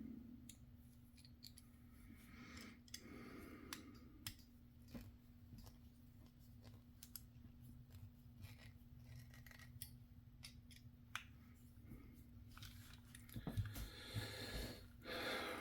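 Faint small clicks and light scraping of small metal parts and tools being handled while an electric motor is fitted and screwed into a TRX4M RC transmission, over a steady low hum. A few louder knocks come near the end.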